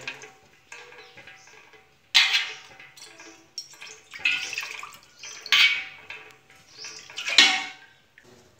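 Fresh buttermilk being scooped from an aluminium pot with a small steel bowl and poured: about four short splashing pours, each lasting under a second.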